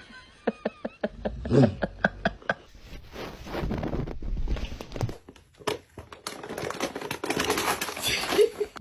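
Irregular sharp clicks and taps mixed with crinkling, rustling noise.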